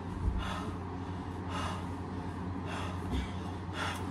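A man breathing hard, with short heavy gasps about once a second, over a steady low hum.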